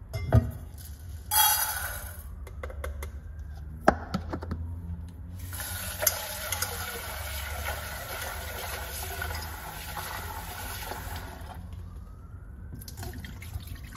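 Kitchen tap water running steadily into a rice cooker's metal inner pot in a stainless steel sink to rinse rice. There are a couple of sharp knocks as the pot is handled, and near the end the rinse water is poured out into the sink.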